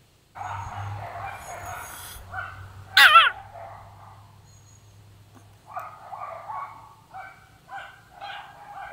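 Pomeranian howling: a loud wavering cry about three seconds in, then a string of short, broken howls near the end.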